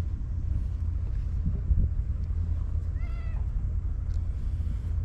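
A cat gives one short meow about three seconds in.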